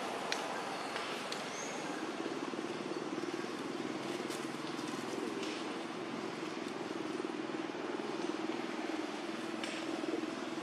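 Steady motor hum over outdoor background noise, with a few faint clicks and one short high chirp near the start.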